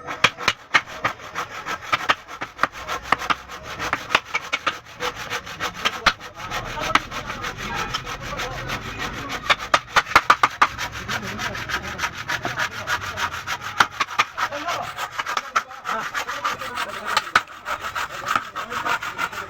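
A hand tool cutting into wood with a fast, continuous run of rasping, scraping strokes.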